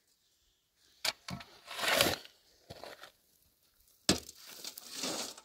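A shovel scooping loose gravel and tipping it into a metal wheelbarrow, twice. Each time there is a sharp strike followed by a gritty scrape and rattle of stones.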